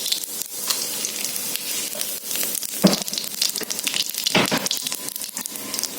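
Whole spices (dried red chillies, cumin and panch phoron) sizzling and crackling in hot oil as a tempering, with two louder knocks about three and four and a half seconds in.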